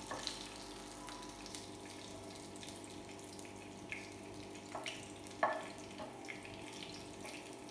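Cumin seeds sizzling in hot oil in a pan, with scattered small pops as they toast. A few sharper scrapes of a wooden spatula stirring them against the pan, the loudest about five and a half seconds in.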